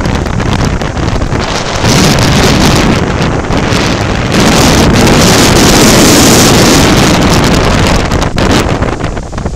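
Strong wind buffeting the microphone over the rush of heavy breaking surf, with two louder surges, one about two seconds in and a longer one from about four to seven seconds.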